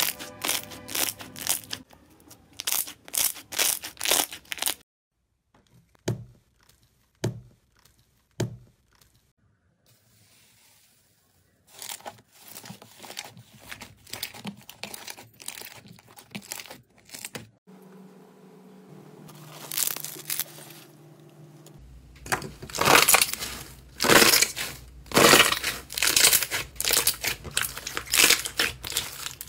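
Hands squeezing and kneading slime, pressing out trapped air in runs of sharp crackling pops and clicks. The runs come with short pauses between them and are densest and loudest in the last third.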